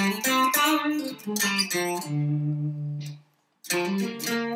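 Home-built electric guitar with humbuckers played in its five-way switch's middle position, the setting meant to imitate a Strat-style middle pickup: a run of picked notes, a longer held note about two seconds in, a short silence just after three seconds, then playing again.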